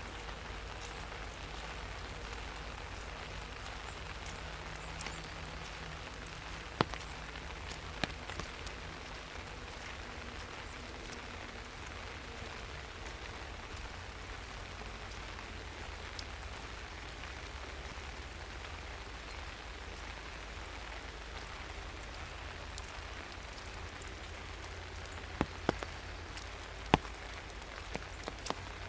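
Steady rain falling through a forest, with a few sharp close taps standing out: one about a quarter of the way in and several near the end.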